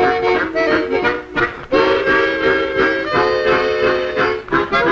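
Harmonica ensemble playing an up-tempo swing tune in chords: short clipped chords alternate with chords held for about a second each.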